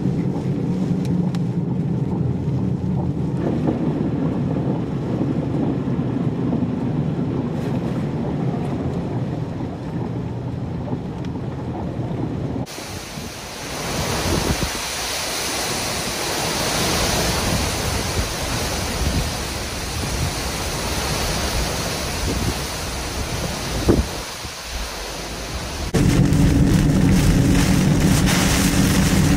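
A vehicle engine runs steadily while tyres splash through standing water in heavy rain. About halfway, tropical-storm wind and rain hiss through trees, with a single sharp thump a couple of seconds before the scene changes. A few seconds before the end, a louder steady rumble of a vehicle driving through rain takes over.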